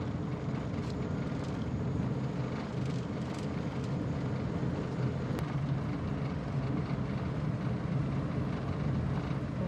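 Steady low rumble of a vehicle on the move: engine and road noise running evenly throughout.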